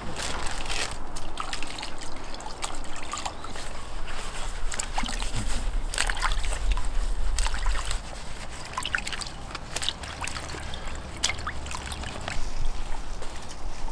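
Ponytail radishes being washed by rubber-gloved hands in a basin of water: water sloshing and trickling, with scattered short splashes as the radishes are rubbed and lifted.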